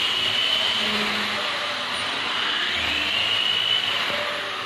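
Corded handheld electric power tool running against wood, its motor whining steadily. The whine sags in pitch about two and a half seconds in as the tool is loaded, then climbs back.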